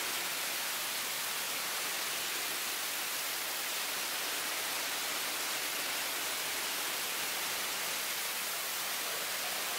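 Steady, even rush of Niagara's Horseshoe Falls pouring past a tunnel portal right behind the falling water.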